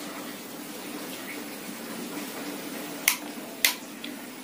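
Steady background hiss with a faint hum, broken by two sharp clicks about half a second apart around three seconds in, as small parts are handled.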